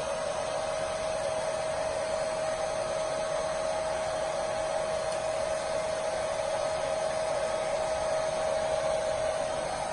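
Hair dryer running steadily: a constant rush of blown air with a steady whine from its motor.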